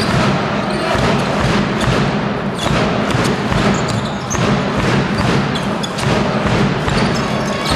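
A basketball bouncing on the court at irregular intervals over the steady din of a large, echoing sports hall during play.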